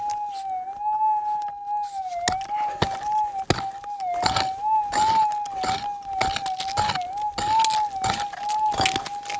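Metal detector audio: a steady, slightly wavering tone, the threshold hum of a Minelab GPZ 7000. Short crunches and scrapes come in a row about every half second to a second, louder than the tone at their peaks.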